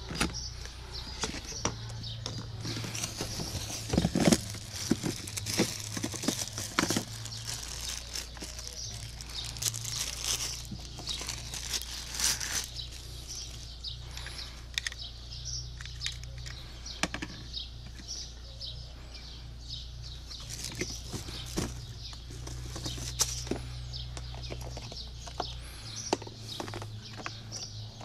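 Clear plastic wrapping crinkling and rustling, with irregular clicks and knocks as a plastic battery sprayer and its charger and cable are handled, over a low steady hum.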